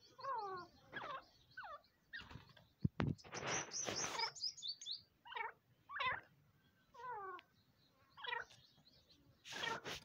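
Grey francolin giving short calls, each falling in pitch, repeated about once a second with gaps; a louder scratchy burst with thin high notes comes about three to four seconds in.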